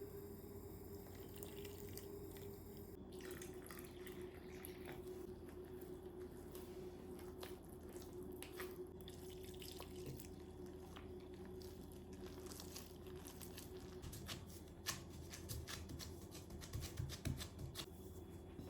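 Water dripping and splashing in a sink: many small irregular drops and clicks, a few louder ones near the end, over a steady low hum.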